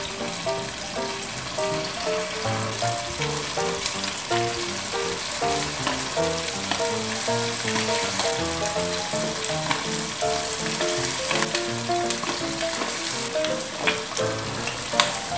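Batter-coated chicken wings deep-frying in a wok of hot vegetable oil: a steady sizzle with scattered crackles and pops as more wings are lowered in. Soft background music plays under it.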